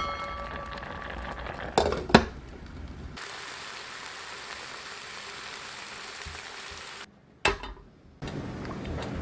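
Food sizzling as it fries in a pan, a steady hiss broken by a few sharp knocks, and cut off briefly near the end.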